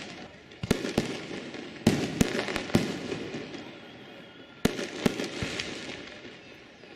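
Fireworks going off: a quick run of sharp bangs in the first three seconds, then one more bang a little before five seconds in. Each bang is followed by a fading tail.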